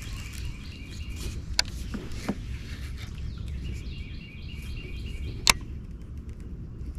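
Outdoor ambience: a steady low rumble of wind on the microphone with faint bird chirps. Two sharp clicks stand out, about one and a half and five and a half seconds in.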